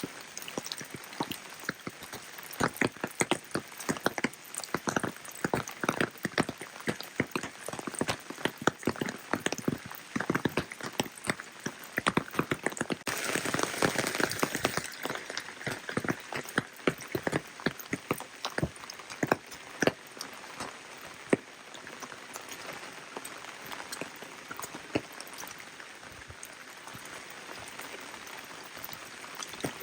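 Rain falling steadily, with many close, sharp raindrop hits over a constant hiss. About thirteen seconds in, a louder hissing swell lasts a couple of seconds.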